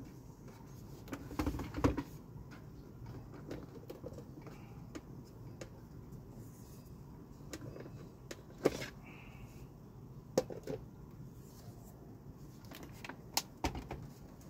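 Scattered plastic knocks and clicks as a Laurastar steam iron and its hose are handled and set against its steam-generator station, with a few sharper knocks standing out among softer handling noise.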